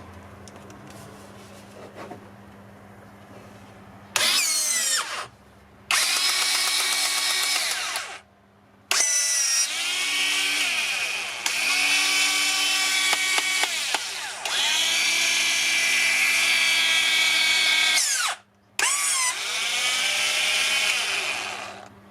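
REX RT20N cordless flaring tool for flexible pipe, its electric motor whining in four runs after a few quiet seconds, rising in pitch as each run starts. The longest run lasts about nine seconds.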